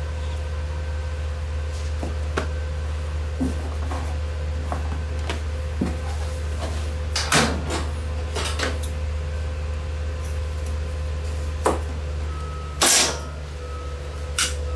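Scattered clicks, knocks and short scraping rustles over a steady low hum, loudest about thirteen seconds in: handling noise from strapping a water tank down onto a garden wagon.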